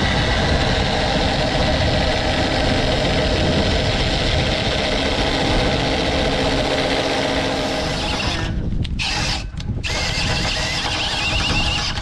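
Cordless drill running steadily as it bores into a wooden boat timber. It stops briefly twice, about eight and a half and nine and a half seconds in.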